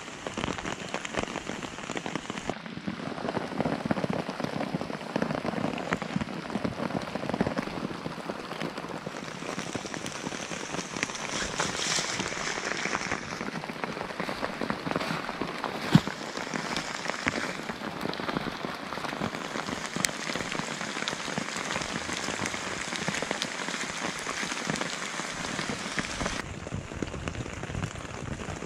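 Steady rain pattering on a nylon poncho shelter and wet leaf litter, a dense crackle of countless drops. About sixteen seconds in, one sharp louder tick stands out.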